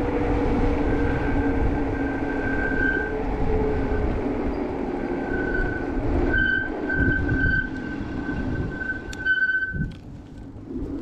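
E-bike disc brakes squealing in a high steady tone, on and off and strongest in the last few seconds as the bike slows, over wind and road rumble with a low hum falling in pitch; the anti-squeal paste has not cured the squeal.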